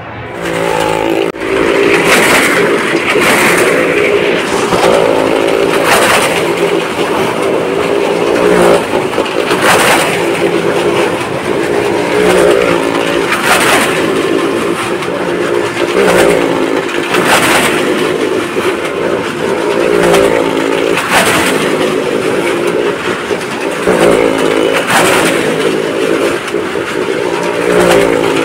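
A vehicle engine revving hard without pause, swelling loud and fading again about every three and a half to four seconds, as in repeated close passes.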